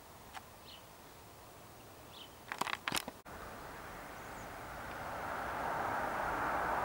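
Quiet outdoor ambience with a few faint bird chirps, then a quick cluster of sharp clicks about two and a half seconds in. After an abrupt cut, a rushing noise rises steadily louder through the second half.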